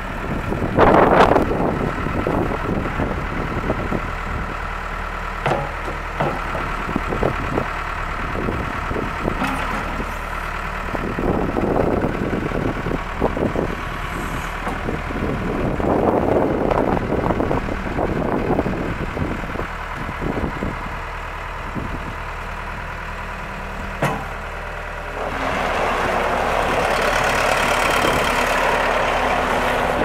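Case 430 skid steer loader's diesel engine running as the machine drives, turns and lifts its bucket, with scattered clanks and knocks from the loader. A steady rushing noise comes in over the last few seconds.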